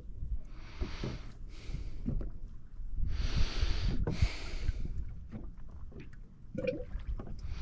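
Water sloshing and splashing against a small boat's hull in paired swells every few seconds, over a low rumble with scattered knocks.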